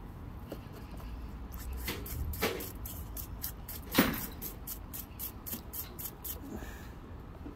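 Stiff-bristled brush scrubbing mud off a small fossil piece, a quick run of short scratchy strokes at about three or four a second, with one sharper knock about four seconds in.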